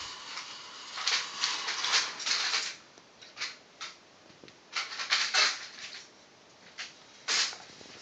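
Glass marbles rolling and clattering along the wire tracks and switches of a mechanical marble binary adder. The sound comes in irregular bursts of rattling clicks, loudest about a second in and again about five seconds in.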